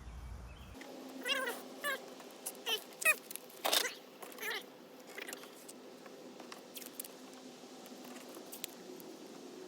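Tape being pulled off the roll in several short, squealing pulls in the first half, then quieter.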